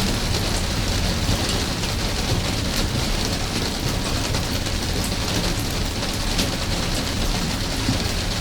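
Steady rain falling, with many scattered sharp drop ticks over an even hiss and a steady low rumble underneath.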